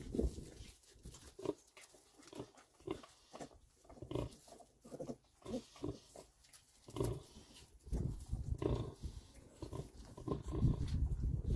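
Oxford Sandy and Black sow giving short, repeated nursing grunts while her two-week-old piglets suckle. The grunting becomes denser and louder about eight seconds in.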